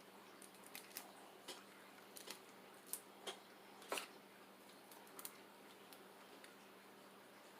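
Faint eating sounds over near silence: a dozen or so scattered small clicks and smacks, most in the first five seconds, from someone chewing and picking at seafood.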